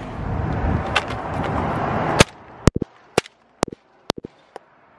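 A steady rushing noise, then a loud crack a little over two seconds in, followed by a string of short sharp snaps over the next two seconds: a red plastic ring of toy caps on asphalt being set off by striking it with a hand tool.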